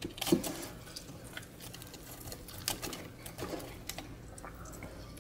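Metal fork clicking and scraping against a non-stick air fryer basket and the chicken wings in it as they are turned: a run of light knocks, the loudest about a third of a second in.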